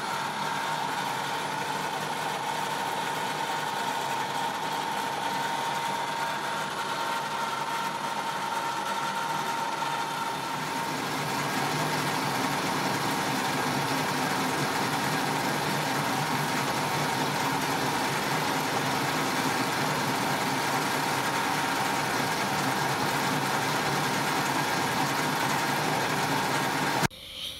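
Metal lathe running steadily with a constant high whine, its chuck spinning a welded exhaust manifold while the cutting tool machines the weld flush.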